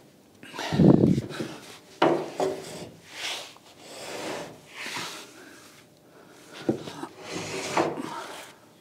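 Heavy timber beam scraping and grinding against the wooden beams beneath it as it is shoved along by hand in a series of pushes. The loudest and deepest scrape comes about a second in.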